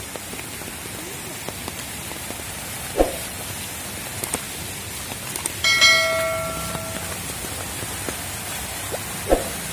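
Steady rushing hiss of water, rain or floodwater. Two dull thuds come about three seconds in and near the end, and a ringing, bell-like tone a little past halfway fades over about a second.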